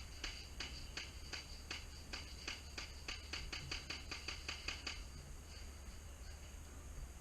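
Rhythmic metallic clinking, about three clicks a second, in time with steps: worn armour rattling as the wearer walks or jogs. The clinking stops about five seconds in.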